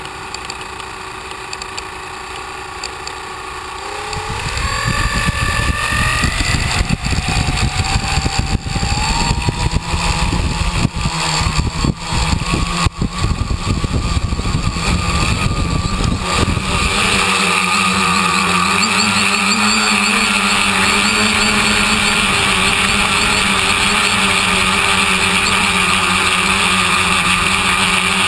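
Tricopter's three motors and propellers whining, rising in pitch about four seconds in as they spin up. Then comes a stretch of gusty, choppy noise, and from about seventeen seconds they settle into a steady drone.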